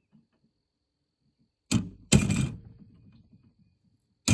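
Hammer striking a steel punch to drive a ground-off rivet out of a McCormick 27V mower's sickle bar: a light tap followed by a hard metallic strike that rings briefly, then another strike at the very end.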